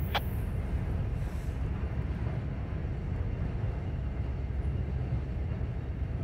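Freight cars rolling across a steel truss bridge: a steady low rumble of wheels on the rails and bridge deck. A brief high squeak slides down in pitch right at the start.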